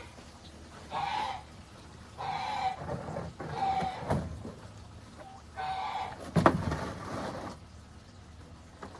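Backyard poultry calling in short separate calls, about four of them. Two sharp knocks come about four and six and a half seconds in; the second is the loudest sound.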